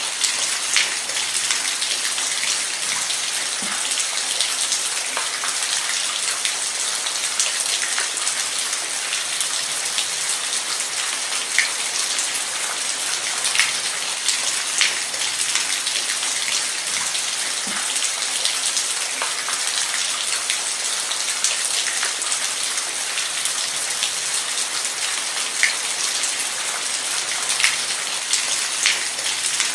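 Steady rain falling on a hard surface, a dense hiss with scattered sharper drop ticks.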